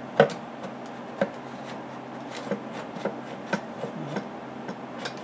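Clicks and small knocks of a part being worked by hand on a Briggs & Stratton engine, an assembly whose screws are out but which is still stuck on by its gasket. A sharp knock comes about a quarter second in, another about a second in, and lighter clicks follow.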